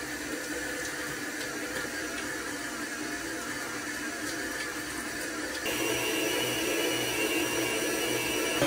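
Stand mixer running with its dough hook through very wet, sloppy bread dough while water is poured into the bowl from a jug. About six seconds in the motor steps up louder, with a higher whine.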